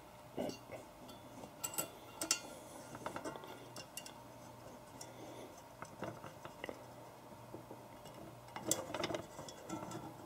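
Faint, scattered light clicks and knocks from a pistol recoil spring being pressed down by hand onto a dial postal scale, with a short cluster of them near the end.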